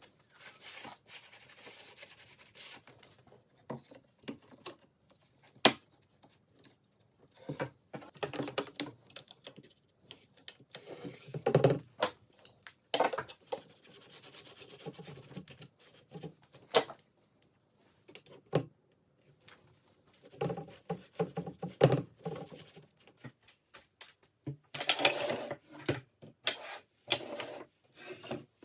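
Hand work on wooden shelf parts: short, irregular spells of rubbing and scratching, like sandpaper on wood, broken by scattered sharp clicks and knocks.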